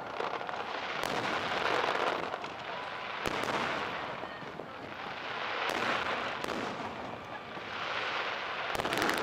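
Fireworks display going off: a handful of sharp bangs a second or more apart, over a wash of crackle and hiss that swells and fades every couple of seconds.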